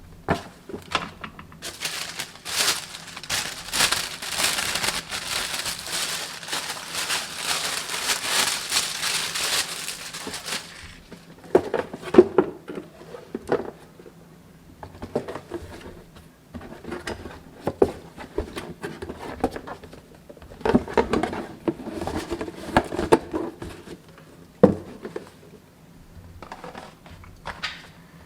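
Packaging being unwrapped and handled: dense crinkling and rustling for about nine seconds, then scattered knocks and handling sounds as the box and its contents are moved.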